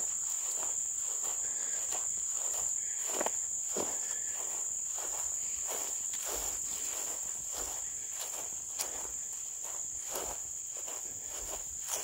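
A steady, high-pitched chorus of insects, with soft footsteps through grass now and then.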